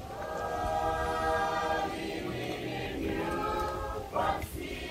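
Background music: a choir singing long held notes in harmony, with a brief break in the middle.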